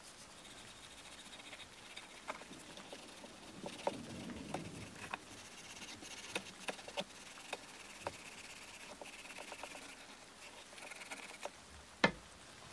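Faint light scratching and scattered small clicks and taps from hand work on the knife, with one sharper click near the end.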